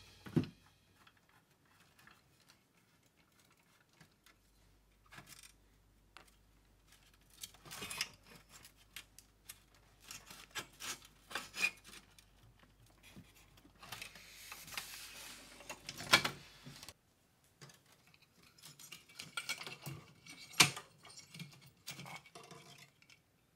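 Metal chassis and parts of a Commodore 8250LP disk drive being handled and taken apart by hand: faint scattered clicks, scrapes and rattles, with two sharper clacks, one about two-thirds of the way through and one near the end.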